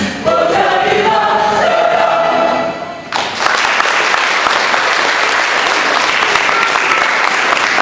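A combined choir holds a final sung chord, which cuts off about three seconds in, and an audience breaks into applause that continues to the end.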